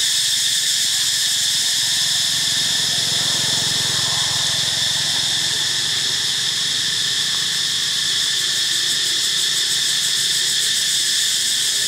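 Steady, high-pitched drone of a tropical insect chorus, several pitches held at an even level without a break.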